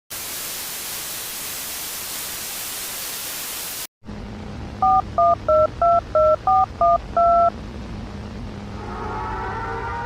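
Loud static hiss for about four seconds, cut off abruptly. Then a steady low hum under eight quick touch-tone (DTMF) beeps, the last held longer. Near the end a siren starts up, rising in pitch.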